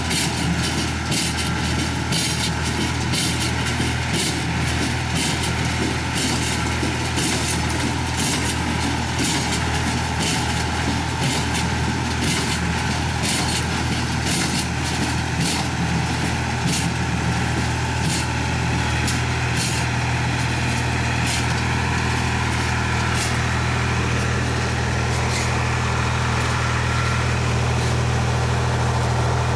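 Massey Ferguson 231 tractor's three-cylinder diesel running steadily under load, driving a Case 200 small square baler. The baler's plunger knocks in an even rhythm, a little more than once a second, and the knocks fade about three quarters of the way through while the engine drone carries on.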